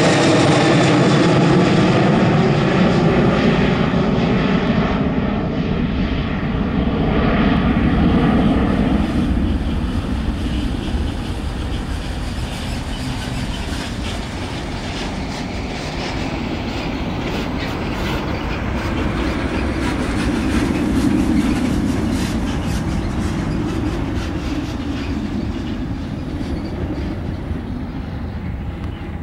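The Boeing 737-700's CFM56-7B turbofans at climb power as the jet climbs away. Falling engine tones are heard in the first few seconds, followed by a broad rumble that slowly fades as the aircraft recedes.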